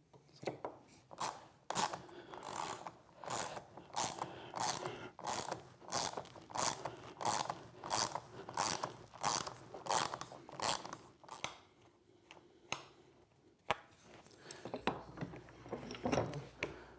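Hand socket ratchet clicking in even strokes, about one and a half a second, as it turns a threaded insert into hard maple. The strokes stop about eleven seconds in, followed by a few scattered knocks.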